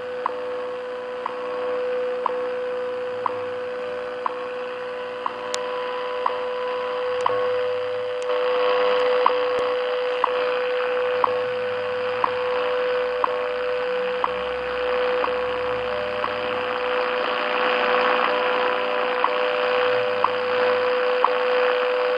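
WWV time signal received on 10 MHz shortwave: a steady audio tone with a short tick every second, the station's seconds pulses, over shortwave static that swells and fades.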